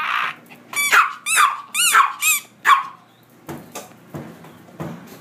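A small Chihuahua-type dog yapping, about five short high-pitched barks in quick succession over the first three seconds, then a few faint taps.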